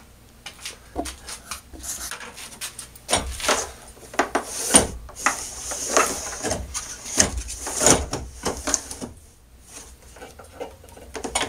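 A router being set down and shifted about on a plastic router-table plate: irregular knocks, clatters and scrapes, with no motor running. The handling eases off for the last couple of seconds, with one more knock at the very end.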